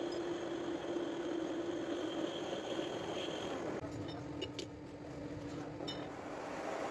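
Metal lathe running with a steel gear blank turning between the chuck and a live centre: a steady hum with a faint high whine. About four seconds in, it changes to a quieter hum with a few light clicks.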